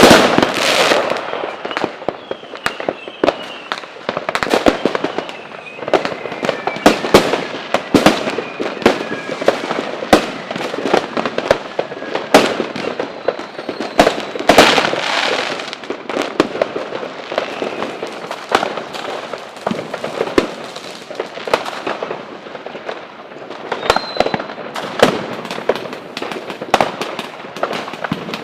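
Fireworks going off: a steady run of irregular sharp bangs and crackling, with a few faint whistles gliding in pitch.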